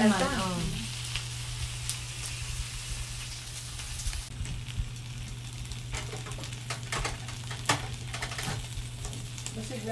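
Meat sizzling and crackling on a Korean barbecue grill pan over a portable gas stove. A few sharp clicks in the second half come from tongs turning the meat on the pan.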